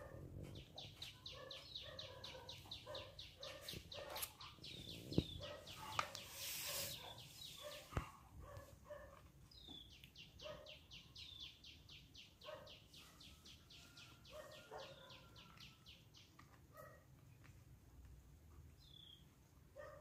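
Faint animal calls: a rapid high-pitched trill of evenly spaced chirps that stops about eight seconds in and resumes about ten to sixteen seconds in, over short repeated lower calls. There are a couple of sharp clicks around five and eight seconds in.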